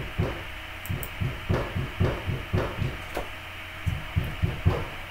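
A dozen or so dull, irregular thumps with a few light clicks from a computer keyboard and mouse being worked at a desk, over a steady electrical hum.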